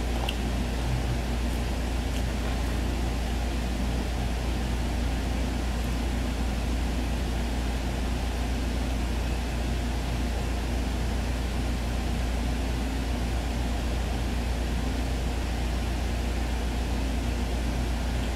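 Steady whooshing background noise with a constant low hum, unchanging throughout, with a faint click or two near the start.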